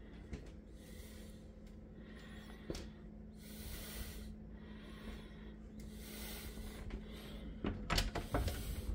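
A closet door is opened, with a quick cluster of clicks and knocks from the handle and door near the end. A low steady hum runs underneath.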